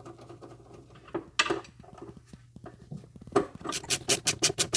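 Light metallic clicks and clatter of nuts, washers and hand tools while the accumulator's mounting hardware is fastened, turning about three and a half seconds in into a fast, even clicking of about six clicks a second.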